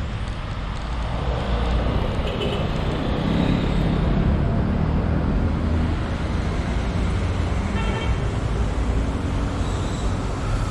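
City street traffic: car engines running and passing close by over a steady low rumble. A couple of short high beeps sound, one about two seconds in and one about eight seconds in.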